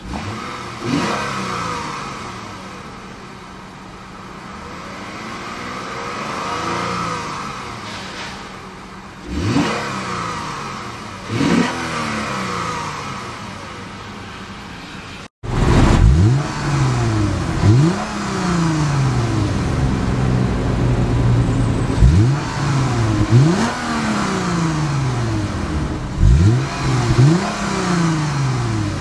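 2013 Lexus GS350 F-Sport's 3.5-litre V6 revved in park, each rev rising and falling back to idle. It has the pronounced tone of the F-Sport's tuned exhaust, bringing out a little V8 flavour. A few spaced revs are heard from inside the cabin, then about halfway through a louder run of quicker revs is heard at the dual exhaust tips.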